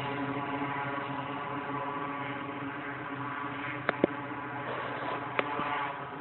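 Cessna 206's piston engine running steadily, a droning hum with a fixed pitch. A few sharp clicks come about four seconds in and again just after five seconds.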